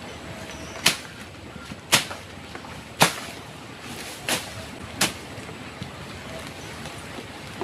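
Five sharp strikes, roughly one a second, over a steady wind-like background noise; the strikes stop about five seconds in.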